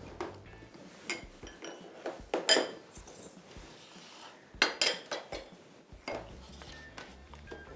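Glass bowls and small dishes clinking and knocking on a kitchen counter as they are moved about, with a metal spoon tapping against glass. The clinks come irregularly, with the loudest pair of clusters about two and a half and almost five seconds in.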